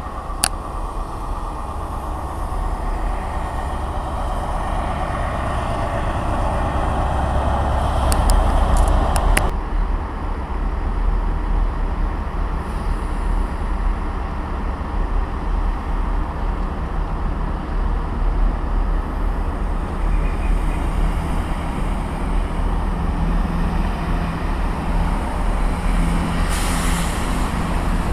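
Train moving through the station: a rushing wheel-and-rail noise with a few sharp clicks builds and breaks off suddenly about nine and a half seconds in, leaving a steady low engine drone.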